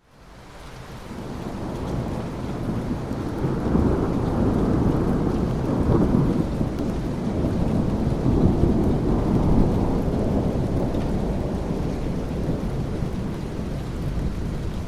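Thunderstorm: rolling thunder rumbling under steady rain. It fades in over the first couple of seconds, and the rumble swells through the middle before easing off a little near the end.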